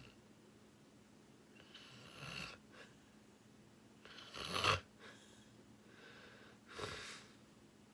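A sleeping person snoring: three noisy breaths about two seconds apart, the middle one the loudest.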